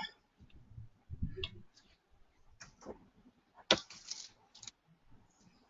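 Scattered clicks from a computer mouse and keyboard, about five in all, with the sharpest one a little before four seconds in, and a few faint low bumps.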